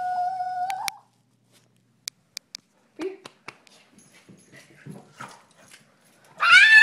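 Boston terrier whining: a long, steady high whine that stops about a second in, a few faint clicks and knocks, then a loud whine near the end that rises and then falls in pitch. She is whining to be let in on the play.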